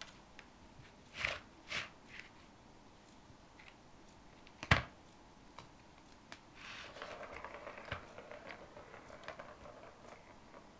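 Plastic ball in a Catit Design Senses Play Circuit track as a cat bats at it. There are a few light knocks on the plastic, then a sharp click about halfway through, the loudest sound. After that the ball rolls around the track with a continuous light rattle for about three seconds.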